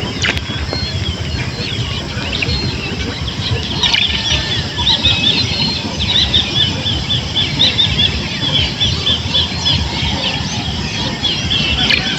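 Small birds chirping, with many short high chirps and a rapid repeated run in the middle, over a steady low rumble.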